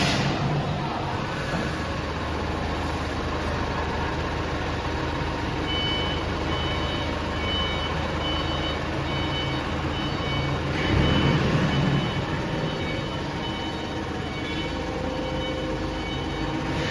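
CNC drilling machine for fibreglass pipe running with a steady mechanical noise; a series of short high beeps sounds from about six seconds in for around five seconds, and the machine noise swells louder for about a second shortly after.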